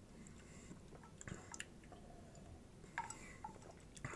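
Faint mouth sounds of someone sipping and swallowing a fizzy energy drink from a glass with ice, with a few small clicks and a light knock near the end.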